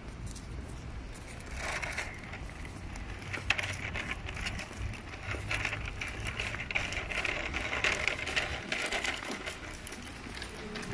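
Plastic wheels of a small toy shopping cart rattling and clattering as it is pushed over stone paving, busiest in the middle of the stretch, with a low rumble underneath.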